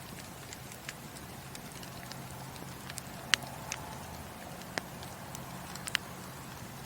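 Wood fire burning in a fireplace, crackling with sharp irregular pops over a steady low hiss, the loudest pop about a third of the way in and a quick pair near the end.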